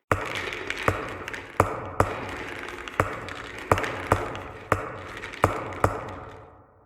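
A series of about nine sharp taps at uneven intervals, over a steady hiss that fades out near the end.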